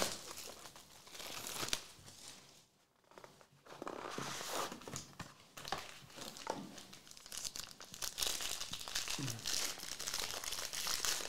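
Cellophane wrap and a gold foil trading-card pack crinkling and tearing as they are opened by hand, with a short pause about three seconds in.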